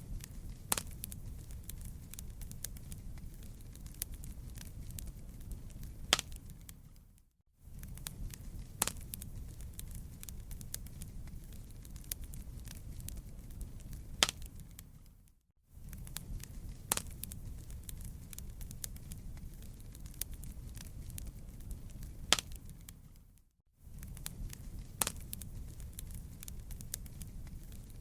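Wood campfire crackling, with scattered sharp pops over a steady low rumble. The sound fades out and back in about every eight seconds, three times.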